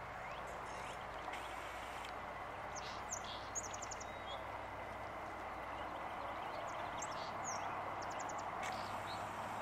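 Steady rush of flowing river water, with small birds chirping over it in quick runs of high notes a few seconds in and again near the end.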